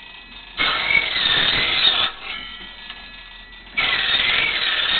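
Foot-powered table saw cutting through small pieces of wood held in a jig: two cuts of about a second and a half each, one starting about half a second in and one near the end, with the blade spinning freely in between.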